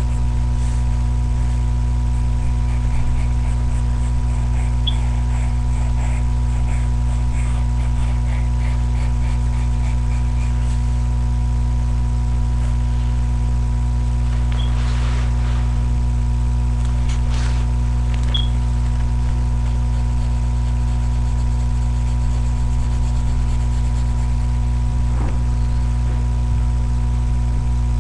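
Steady low electrical hum with many even overtones, unchanging throughout. Faint light scratching sounds lie over it in the first ten seconds and again briefly around the middle.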